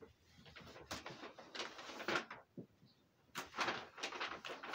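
Brown paper shopping bag and the cardboard box inside it being handled, rustling and scraping in two bouts, about a second in and again past three seconds, with a few sharp clicks.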